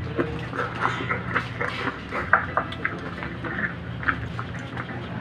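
Close-up chewing and lip-smacking while eating crab: irregular, short, wet clicks from the mouth, several a second, over a steady low hum.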